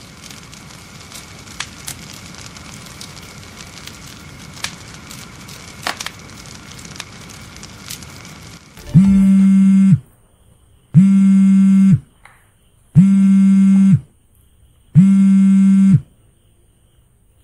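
A low crackling fire sound effect with scattered pops grows slowly louder. About halfway in, a smartphone on vibrate starts buzzing against a soft surface: four loud buzzes, each about a second long and a second apart, the signal of an incoming call.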